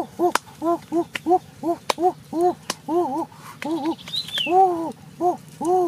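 A man's voice making quick repeated hooting 'ooh' sounds through pursed lips, each note rising and falling, about three a second. A few sharp clicks and a short high chirp about four seconds in.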